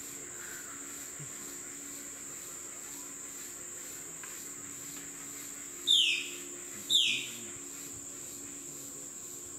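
Insects droning steadily at a high pitch, with a bird giving two loud, short downward-sliding calls about a second apart just past the middle.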